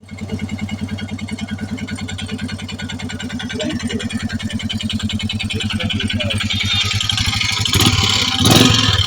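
Royal Enfield Meteor 350's single-cylinder engine running with an even thumping beat and a rhythmic ticking over it, which the owner takes for an engine noise fault. It grows louder toward the end, with a few heavier bursts in the last second or so.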